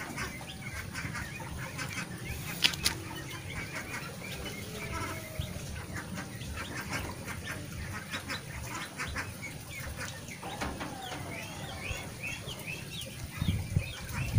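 Outdoor background of birds calling, many short repeated chirps, with one sharp click about three seconds in. A louder low rumble comes in near the end.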